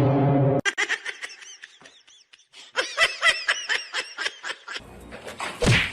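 A loud, steady buzzing tone cuts off about half a second in, followed by a person laughing in quick, high-pitched bursts, with a louder burst near the end.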